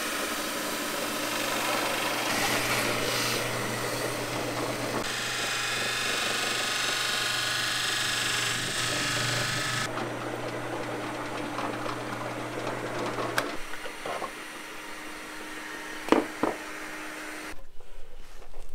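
Power drill running steadily, cutting a 4-inch cowl hole in the top of a Dorade box with a hole saw; it stops about 13 seconds in, followed by a few sharp knocks.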